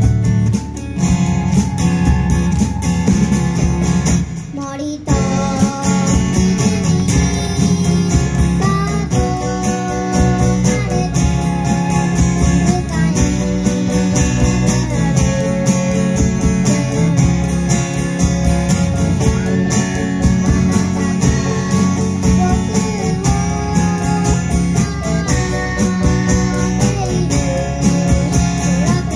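Live band playing an oldies song: guitar, drum kit and keyboard, with a child singing the melody. The music thins out briefly about four seconds in, then carries on.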